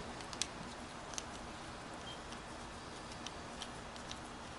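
A few faint, small ticks and clicks from a screwdriver turning a Phillips screw into a hose coupler's collar, over a steady low hiss.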